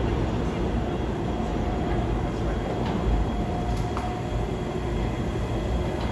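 New York City Subway train running along the station track, a steady rumble with a faint whine partway through and a couple of sharp clicks.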